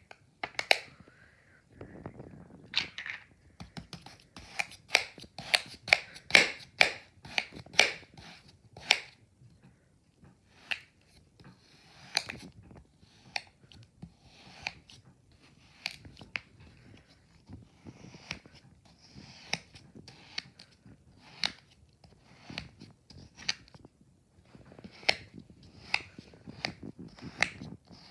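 A knife slicing through packed green kinetic sand on a plastic tray: a series of short cutting strokes, coming quickly between about four and nine seconds in, then more spaced out.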